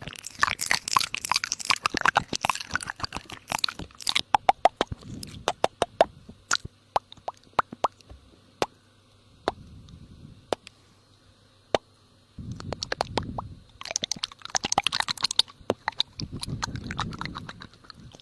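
Close crunching and crackling, dense for about four seconds and then thinning to scattered single clicks, followed later by softer, wetter low sounds.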